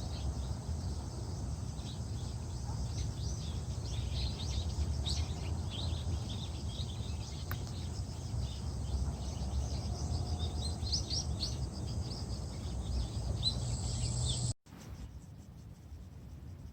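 Small birds chirping in many short, quick calls over a steady low rumble. The sound cuts off abruptly near the end, leaving a quieter background.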